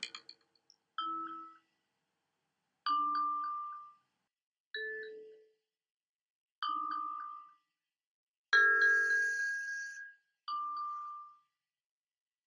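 Sparse bell-like struck tones, like a glockenspiel or chime, in a slow even pulse. Six single strikes come about every two seconds, each a low and a high note together that rings out within about a second, with silence between. The strike a little past the middle is the loudest and carries a brighter, shimmering top.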